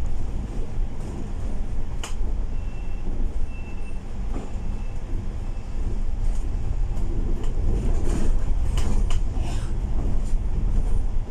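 Cabin noise of a Volvo B8L double-decker bus on the move, heard from the upper deck: a steady low rumble of diesel engine and road noise with rattles and clicks from the body. A sharp knock comes about two seconds in, a few faint short beeps follow, and a cluster of clatters comes near the end.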